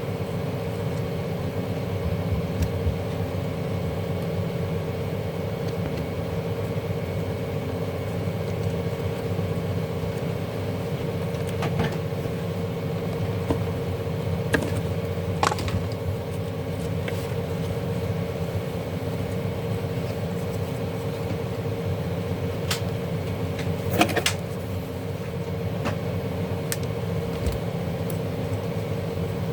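Steady background hum with scattered clicks and knocks, the loudest about 24 seconds in, from hands and tools handling a garment steamer during disassembly.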